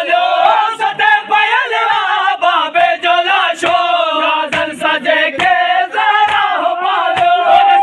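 Men's voices chanting a Sindhi noha (Muharram lament) together, with sharp hand-slaps of matam chest-beating keeping a steady beat under the chant.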